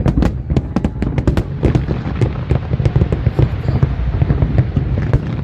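Fireworks display: a rapid, continuous barrage of bangs and crackles, several a second, over a steady low rumble.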